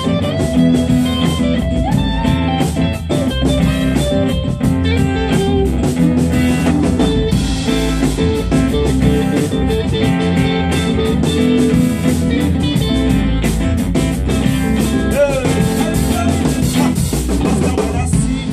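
Live band playing an instrumental passage: guitars, electric bass, drum kit and saxophone together, with a steady beat of drum hits under held notes.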